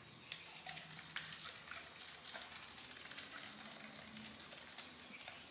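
Faint crackling with scattered light clicks, the handling noise of a small plastic bottle being turned and rubbed in the hands.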